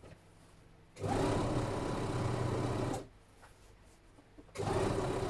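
Electric domestic sewing machine stitching a seam in two short stop-start runs: about two seconds of steady running, a pause, then about another second.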